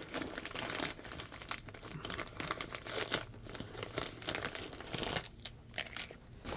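A mailing envelope being torn open by hand and its contents handled, with irregular crinkling and tearing that pauses briefly near the end.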